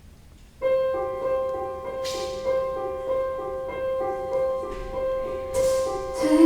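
Recorded instrumental music for the performance starts about half a second in: a slow melody of repeated notes over one long held tone.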